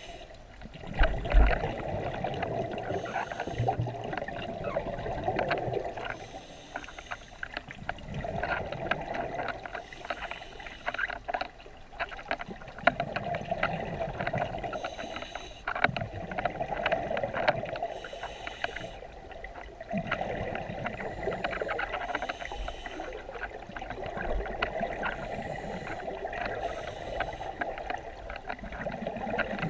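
Scuba diver breathing through a regulator underwater: a hiss with each inhalation and a rush of exhaled bubbles, repeating every three to four seconds.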